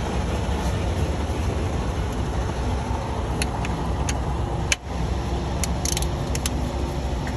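An engine idling steadily in the background, with light metallic clicks and clinks of tools on the belt tensioner in the second half. One sharp knock comes about halfway through.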